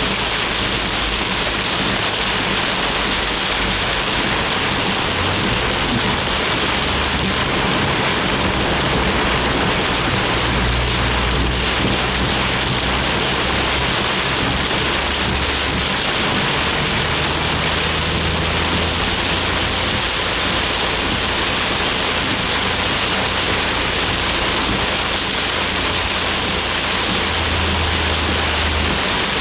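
Heavy rain falling on a Suzuki Jimny, heard from inside the car as a steady dense hiss, over a low engine and road rumble that swells and fades a few times.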